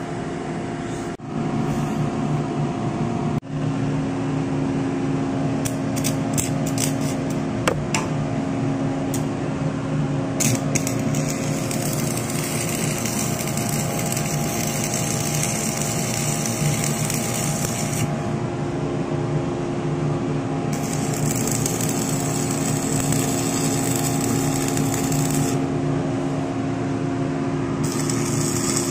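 Electric arc welding: the arc crackles and hisses in three runs of several seconds each, the first starting about ten seconds in, over a steady machinery hum. A few sharp clicks come shortly before the first run.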